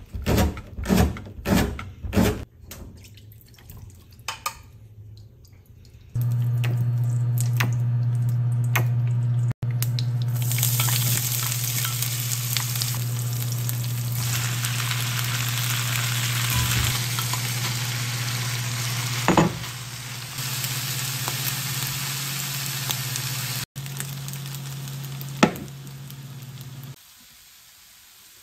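A kitchen knife chopping green onion on a cutting board, about two cuts a second, for the first few seconds. Then oil sizzling in a frying pan as green onions, tuna and rice are stir-fried, over a steady low hum.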